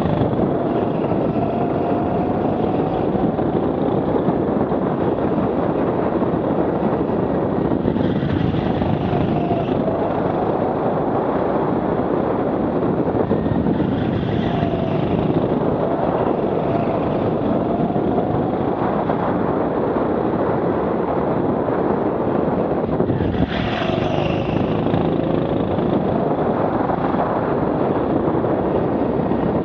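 Rental go-kart at speed heard on board through a helmet camera: a steady rush of motor, tyre and wind noise, with the motor's pitch rising and falling several times as the kart accelerates along the straights and slows for the corners.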